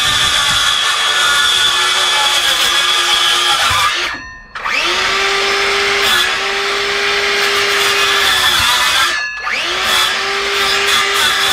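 Electric circular saw cutting into a chipboard floor panel, its motor whining steadily under load. About four seconds in the motor stops for half a second, then spins back up with a rising whine; it dips and spins up again briefly near nine seconds.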